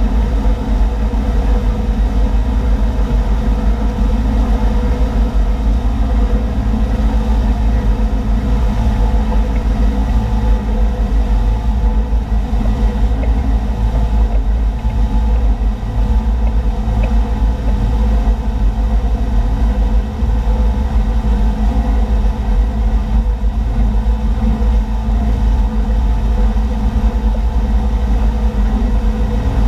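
Towboat's engine running steadily at speed while pulling a waterskier, a constant deep drone with no change in pitch.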